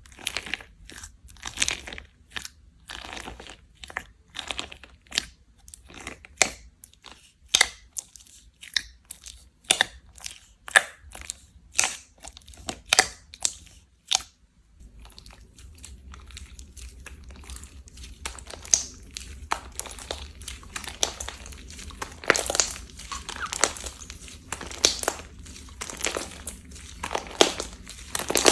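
Slime being pressed, poked and stretched by hand, giving sharp irregular clicks and crunches several times a second. About halfway through, a different slime takes over with denser, softer crackling.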